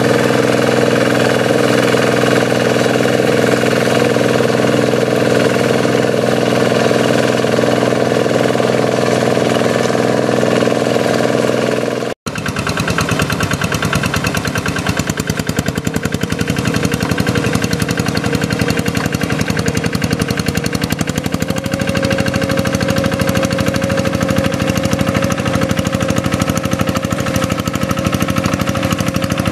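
Single-cylinder diesel engine of a two-wheel hand tractor running under load with a rapid knocking beat, as it pulls its cage wheels through flooded paddy mud. The sound drops out for an instant about twelve seconds in.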